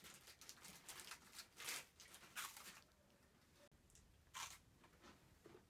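Faint crinkling and tearing of a plastic food wrapper being opened and handled, in short scattered bursts, then a crunchy bite of the food about four seconds in.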